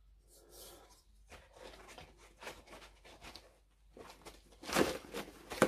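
Handling noise of model kit parts being turned over and moved about by hand: light rustling and small clicks, louder about five seconds in, with one sharp click near the end.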